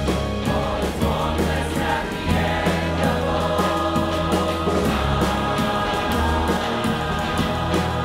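Live choir singing full-voiced with a rock band and string orchestra: a male lead singer, electric guitar and drums over a steady held bass.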